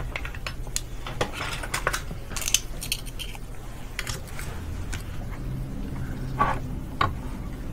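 Light clicks and clinks of glass microscope slides being handled and swapped on the microscope stage, scattered irregularly, with a few sharper knocks near the end. A low steady hum runs underneath.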